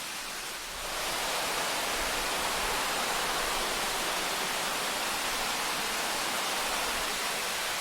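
Shallow river water running over rocks, a steady rushing that grows louder about a second in.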